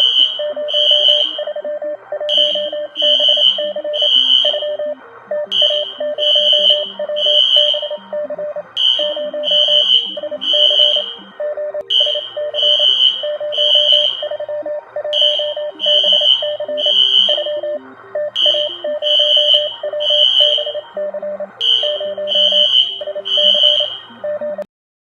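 Emergency alert alarm sounding a high beep in groups of three with a short pause between groups, over a lower rapidly pulsing tone and a steady hiss. It stops abruptly just before the end.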